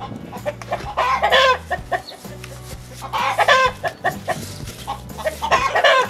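A chicken calling loudly three times, about two seconds apart, over background music with a steady low beat.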